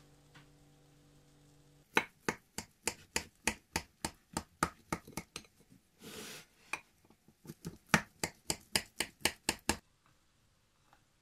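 A knife sawing and cutting through the crisp baked walnut and oat topping of a pie in a glass dish: a quick series of sharp crunches, about three a second, with a short scrape in the middle, stopping shortly before the end.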